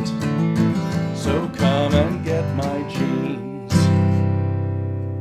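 Man singing over a strummed acoustic guitar, ending on a final strummed chord about three and a half seconds in that rings on and slowly fades.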